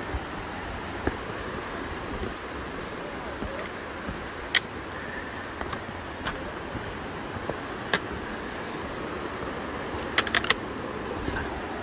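Steady rushing wind noise on the microphone, with single sharp taps every few seconds and three quick taps near the end.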